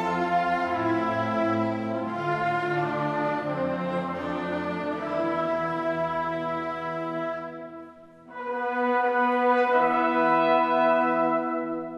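Children's early-music ensemble of wind instruments and bowed strings playing a medieval song, sustained chords with a brief break about eight seconds in before the next phrase.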